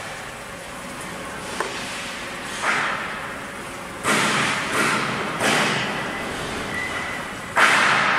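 Two-head CNC plate drilling machine drilling holes in a metal plate: irregular bursts of cutting noise, about six of them, each starting suddenly and fading, over a steady machine noise, with one sharp tick early on.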